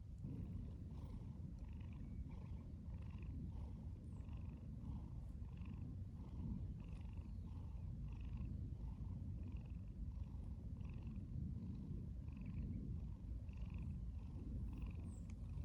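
Brown tabby cat purring: a steady, rhythmic purr.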